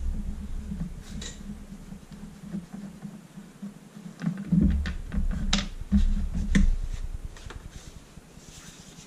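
Scattered small clicks and taps of a screwdriver working the screws of a BB gun's plastic housing, with loose screws and plastic parts knocked as they are handled. A low hum sits underneath and fades out twice.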